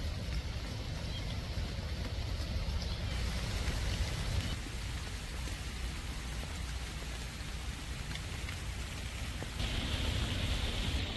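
Heavy rain falling steadily on forest leaves and the forest floor, a continuous hiss over a low rumble, growing louder near the end.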